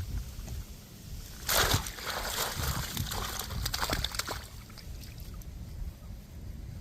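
Water splashing and sloshing: one loud splash about one and a half seconds in, then smaller splashes over the next few seconds.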